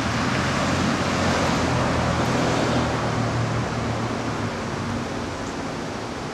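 Heavy thunderstorm rain falling steadily, a dense hiss, with a low rumble beneath it through the first few seconds that fades about two-thirds of the way in.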